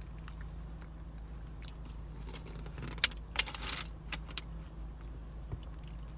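Paper food wrapper crinkling briefly about three seconds in, with a sharp click at its start and a few small clicks after, over a steady low hum in the car cabin.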